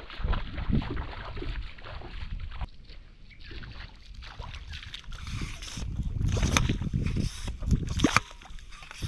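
Wind rumbling on the microphone, with splashing and squelching in shallow water and wet mud. A few sharp knocks come near the end.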